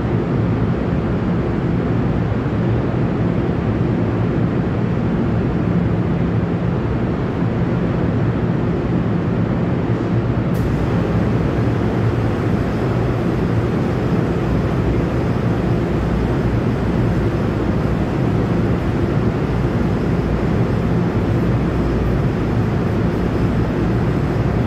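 Steady, unchanging low rumbling drone with a faint hum running through it: the background noise of an underground railway platform with a train standing on the next track.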